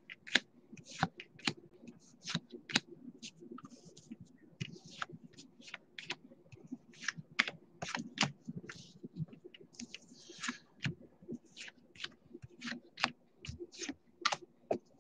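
2020 Topps Gypsy Queen baseball cards being flipped one by one off a stack in the hand: a quick run of light card-on-card clicks and slides, two or three a second, with a longer sliding rustle about ten seconds in.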